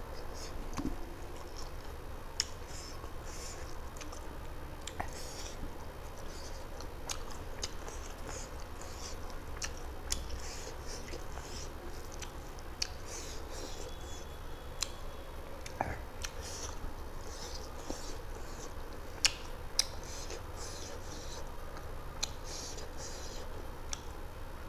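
Close-miked chewing and mouth sounds of a man eating rice and chicken curry by hand, with many short scattered clicks and smacks over a steady low hum.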